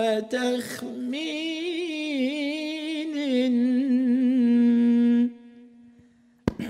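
A solo male voice chanting an unaccompanied Egyptian ibtihal (Islamic devotional supplication) into a microphone, in ornamented melismatic runs with vibrato, ending on a long held note about five seconds in. A short knock follows near the end.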